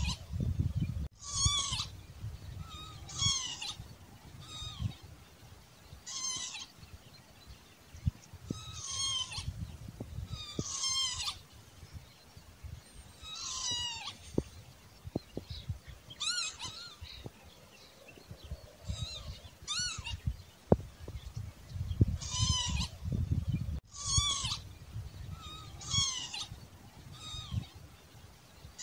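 Northern lapwing giving its slurred, wheezy 'pee-wit' calls over and over, one call every one and a half to three seconds with a few longer gaps. A low rumble comes in near the start and again about three-quarters of the way through.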